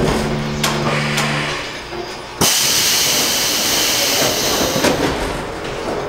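Subway car at a station: a low steady hum with a few clicks dies away about a second and a half in. About a second later a sudden loud hiss of compressed air starts from the train's pneumatic system and lasts about two and a half seconds.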